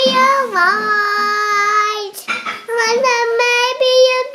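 Young girl singing in a high voice, holding long, steady notes, with a short break about two seconds in.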